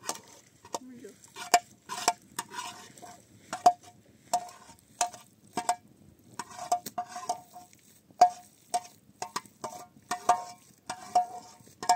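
A utensil knocking and scraping against a pot: irregular clinks, one or two a second, each ringing briefly.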